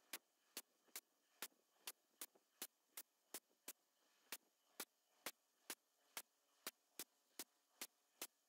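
Faint, sharp ticking at about two ticks a second over near silence.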